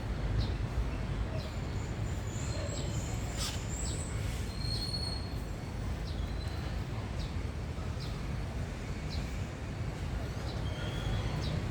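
Small birds chirping: short high chirps repeating every second or so, over a steady low rumble.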